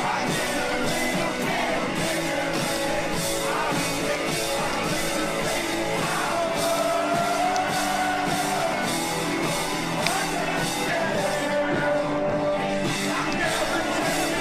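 Rock music with a steady drum beat and a wavering melody line over sustained chords.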